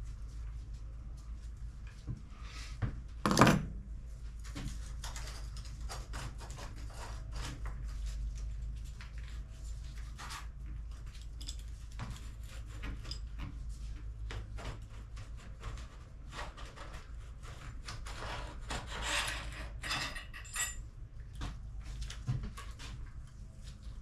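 Small metal bike parts and hand tools clicking, clinking and rubbing as a mountain bike's stem and headset are taken apart, with one louder knock about three seconds in, over a steady low hum.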